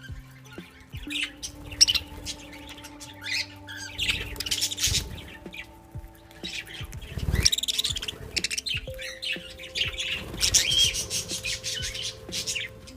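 Budgerigars chirping and chattering in quick, overlapping bursts, with a brief louder burst of noise about halfway through.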